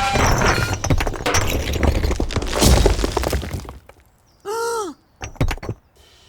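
Cartoon crash sound effect: a long, loud clattering smash, like things breaking and debris falling, that dies away about four seconds in. A short rising-then-falling pitched tone follows, with a few light clicks.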